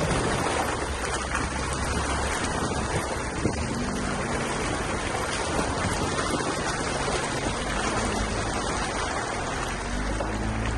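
Jeep Gladiator driving slowly on a dirt trail: a low engine drone under a steady rushing noise. The drone shifts in pitch about four seconds in and grows stronger near the end.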